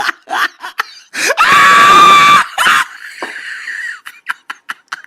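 Laughter, then about a second in a loud, high-pitched human scream that rises at the start and is held for about a second.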